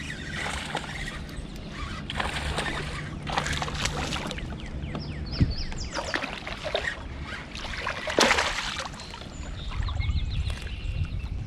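Water splashing and sloshing around a kayak as a small hooked bass is fought to the boat, with irregular splashes, the loudest about eight seconds in.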